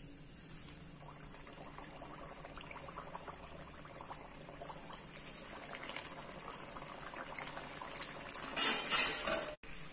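Stuffed puri deep-frying in hot oil in a kadai: a steady bubbling sizzle with crackles, growing louder toward the end with a couple of loud surges.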